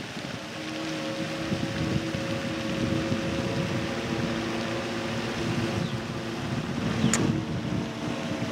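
Wind rumbling on the microphone over a steady motor hum, with one short sharp sound about seven seconds in.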